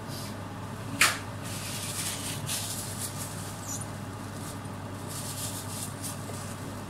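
Plate and paper towel being handled on a kitchen counter: a sharp clink about a second in, then soft rustling, over a steady low hum.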